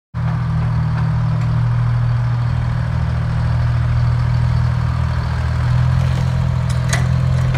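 Link-Belt LS-78 crawler crane's engine running steadily at idle, cutting in suddenly, with a couple of light clicks near the end.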